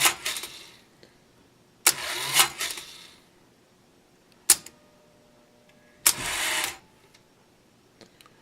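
The electric auto-tuning mechanism of a 1948 Philco 48-1274 radio runs in short whirring bursts of about a second, each starting with a sharp click. There are two full runs, and a single click falls between them.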